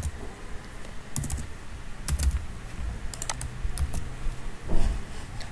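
Computer keyboard being typed on, in a few scattered short runs of key clicks with pauses between them.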